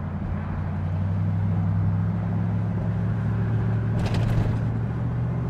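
Toyota 4.7-litre V8 with an MBRP 3-inch resonator-back exhaust, heard from inside the cab as the truck accelerates. The deep exhaust note gets louder about a second in and climbs slightly in pitch. A short hiss of wind or road noise comes about four seconds in.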